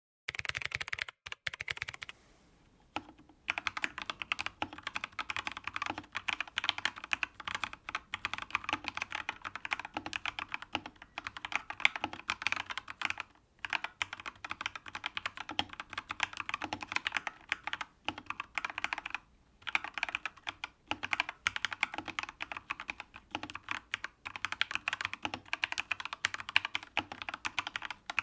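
Typing on a GamaKay LK67 mechanical keyboard: a fast, dense run of key clacks with a few short pauses.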